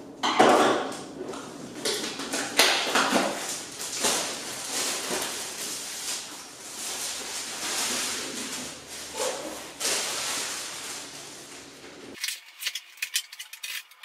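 A power supply's cardboard retail box being handled and opened: cardboard scraping and sliding, with several knocks as the box is tipped and set down. Near the end, a run of quick light clicks and rattles.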